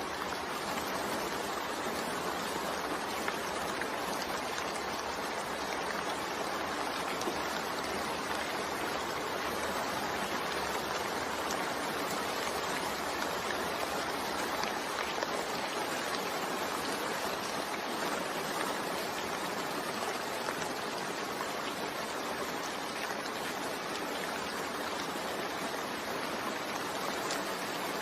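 Steady rainfall, an even hiss with faint scattered ticks of drops.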